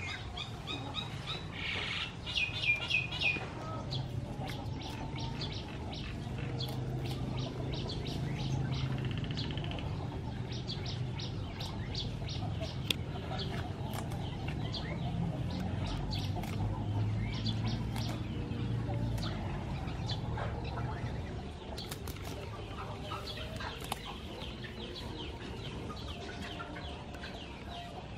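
Chickens clucking and small birds chirping, with a quick run of chirps about two seconds in. Scattered snaps and rustles of water spinach stems being picked by hand.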